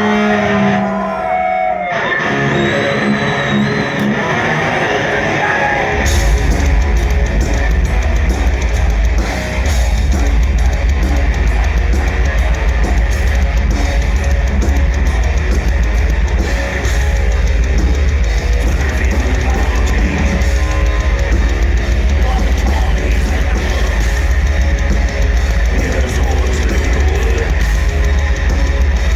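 Live black metal band: electric guitar plays alone for the first few seconds, then drums and bass come in hard about six seconds in, and the full band plays a fast, dense heavy metal section.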